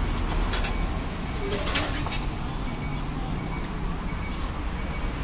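Roadside traffic ambience: a steady low rumble of passing road vehicles, with a few short sharp clicks in the first two seconds.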